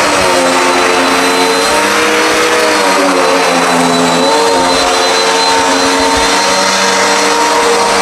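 Dirt Devil Endura Max upright vacuum cleaner running while pushed over carpet: a steady motor whine over airflow hiss, its pitch dipping slightly a few times.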